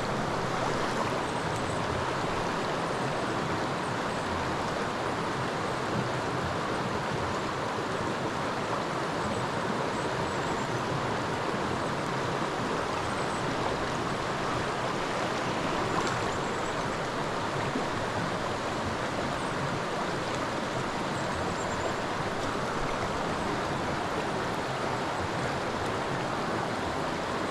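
Steady rush of a creek's flowing water, with two faint knocks about 6 and 16 seconds in.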